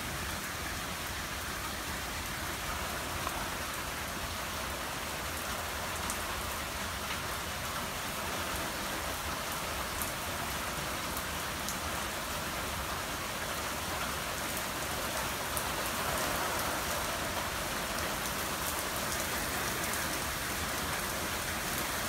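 Steady rain from a thunderstorm pouring down, with a few sharp drip ticks scattered through; it grows a little heavier in the second half.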